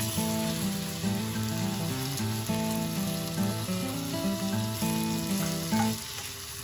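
Food sizzling in hot oil in a pan, a steady hiss, over background music that breaks off briefly near the end.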